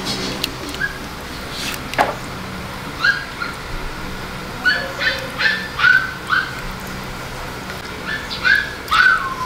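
A dog whining: about a dozen short, high whimpers and yips, several falling in pitch, the last one sliding down at the end. There is a sharp knock about two seconds in, over a steady low hum.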